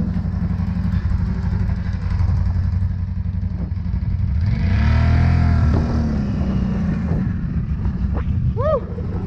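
Ski-Doo snowmobile engine running steadily. Its pitch rises and falls once about halfway through.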